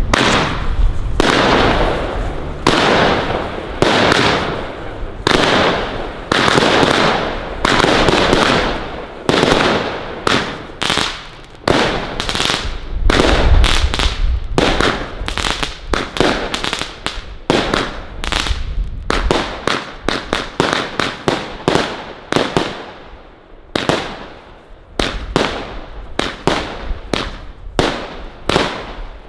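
Rubro Heavy Legend Color Rush fireworks cake, 120 shots from 18 mm tubes, firing in a steady string of launch thumps and aerial shell bursts, each with a short fading tail. The shots come about a second apart at first, quicken to about two a second in the middle, and space out again near the end.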